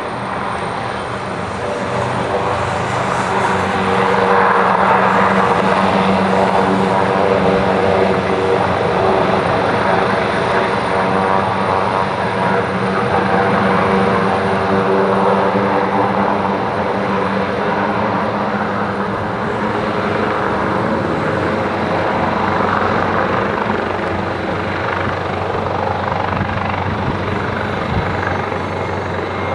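AgustaWestland AW139 twin-turbine helicopter running under power as it lifts off and hovers low: a steady engine whine over continuous rotor noise, growing louder a few seconds in and holding.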